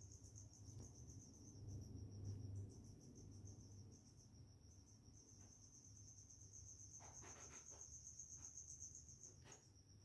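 A cricket trilling, faint and steady, high-pitched and finely pulsed, with a few soft clicks in the second half.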